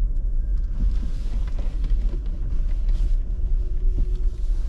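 Steady low rumble of a car rolling at walking pace, heard inside the cabin, with a few faint knocks.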